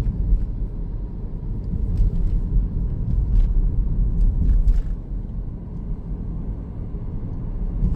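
Road noise inside a moving car's cabin: a steady low rumble, with a few faint clicks.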